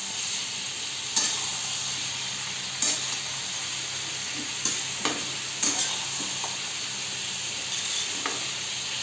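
Sliced spiny gourd (kheksa) frying in oil with spices in a metal kadhai, a steady sizzle, while a metal spoon stirs and scrapes through it, knocking sharply against the pan now and then.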